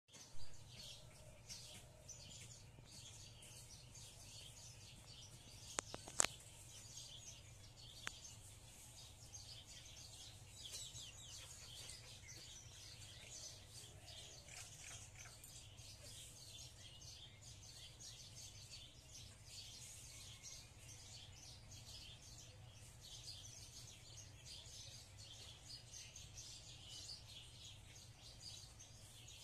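Faint, continuous chorus of small birds chirping and twittering, many calls overlapping, with a couple of sharp clicks about six seconds in.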